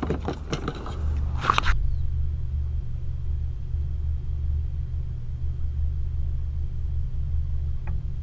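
Steady low road rumble inside a moving car's cabin, with a few sharp knocks and handling noises in the first second and a half.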